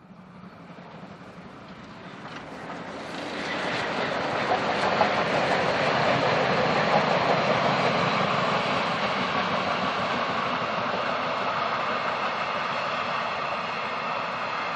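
Train hauled by BR 01 class steam locomotives running past. The rolling rumble rises out of near silence, grows louder over the first five seconds or so, then holds steady and eases slightly near the end.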